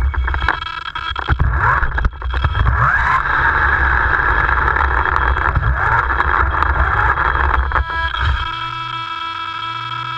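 Onboard sound of a 1/10-scale electric RC off-road buggy driving over rough ground: a low rumble with the brushless motor's whine rising and falling, and several sharp knocks from bumps in the first two seconds. Near the end it changes to a quieter, steady whine of several fixed tones.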